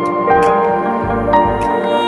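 Background music: held melodic notes changing every half second or so over a low bass.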